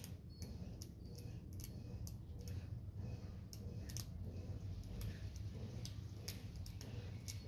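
Light, irregular clicks and ticks, a few each second, from hands working on a motorcycle's ignition wiring, over a steady low hum.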